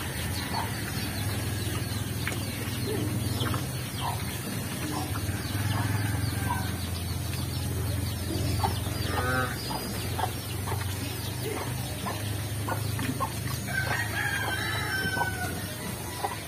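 Chickens clucking, with a rooster crowing about fourteen seconds in, over the low grunting and chewing of a herd of black native pigs eating feed off a concrete floor.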